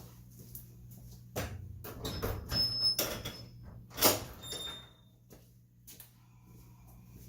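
A run of knocks, scrapes and rattles, with a sharp knock about four seconds in and a few brief high squeaks.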